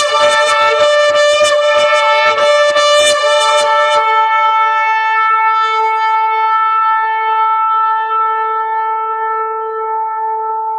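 Shofar (ram's-horn trumpet) blown in one long note. For the first four seconds or so it is broken into rapid staccato pulses, about three a second, then it is held steady and slowly fades.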